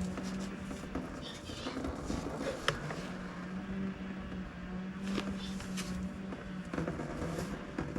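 Scattered metal clinks and knocks from hand tools working on a tight oil filter, over a steady low mechanical hum.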